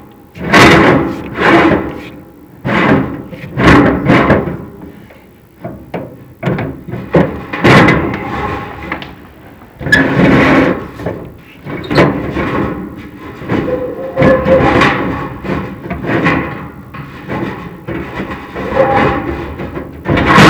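Chimney inspection camera and its rods scraping and clanking against the metal flue of a factory-built fireplace, in uneven loud strokes about once a second.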